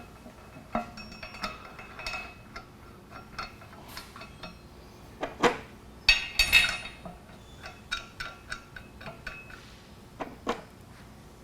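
Metal clinks and clanks of steel valve parts, bolts and flanges being handled and knocked together as a lug butterfly valve is set between pipe flanges. There are scattered light taps with a short ring, and the loudest knocks come in a cluster a little past the middle.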